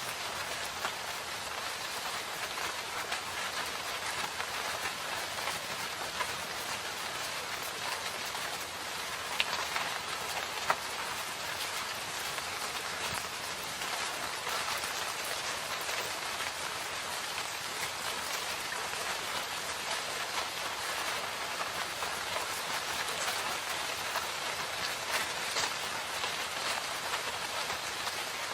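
Steady rain falling, an even hiss of many drops, with a couple of louder single drops ticking sharply about ten seconds in.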